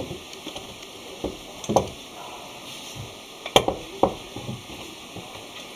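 Fattigmann dough frying in hot fat with a faint steady sizzle, with several short knocks and clicks of utensils handled at the pot.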